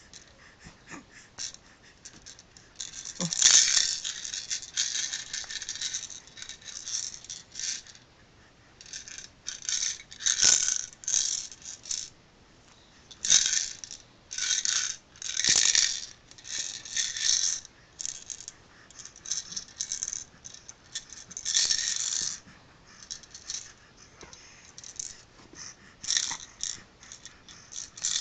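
Small plastic toy maraca shaken in irregular spells of rattling, each lasting a second or two with short pauses between, beginning about three seconds in.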